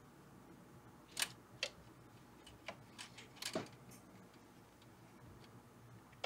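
Light, scattered clicks and taps from hand-soldering a resistor's leads on a vintage amp's circuit board, the soldering iron and solder wire working at the joints. There are about a dozen clicks, most of them between one and four seconds in.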